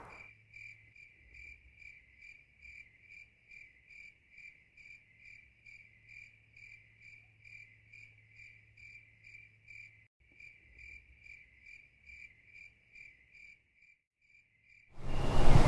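A cricket chirping in the dark: short high chirps, evenly spaced at about three a second, with a brief break about ten seconds in. The chirping fades out near the end and is cut off by louder broad noise.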